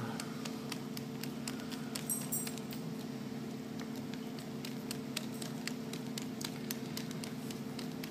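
Small screwdriver tightening pan-head screws through a plastic encoder base plate into a servo motor's end plate: scattered light clicks and ticks, a few stronger about two seconds in, over a steady low hum.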